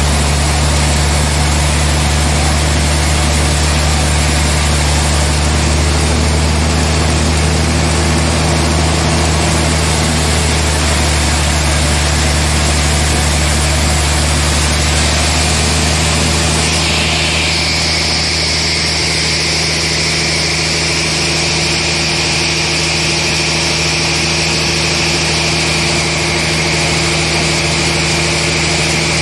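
Large band sawmill running steadily with a low, even hum as a trembesi (rain tree) log is fed through its blade on the carriage. About two-thirds of the way through, a high hiss sets in and holds to the end.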